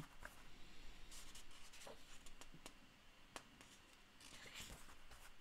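Faint rustling of paper and a few soft clicks as hands turn and handle the pages of a printed sketchbook, with a short page-turning rustle about four and a half seconds in.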